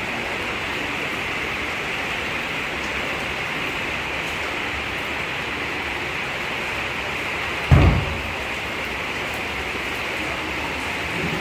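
Heavy rain pouring down, a steady hiss, with a single short low thump a little under eight seconds in.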